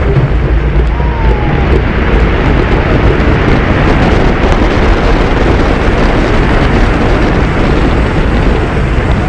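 Roller coaster ride heard from on board: steady rushing wind buffeting the microphone over the low rumble of the train running along its track.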